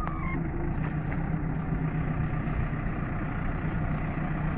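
JCB backhoe loader's diesel engine running steadily with a low hum, as the machine moves up to an old truck to push it.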